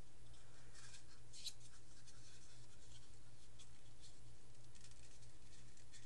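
Faint scratching and rubbing as gloved hands turn over a ceramic processor pressed into a block of styrofoam: foam and gloves scraping in short bursts, busiest about a second in, over a steady low electrical hum.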